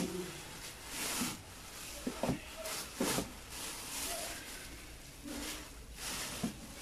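Black plastic garbage bag rustling and crinkling in short, irregular bursts as it is shaken open and pulled over the rim of a bin.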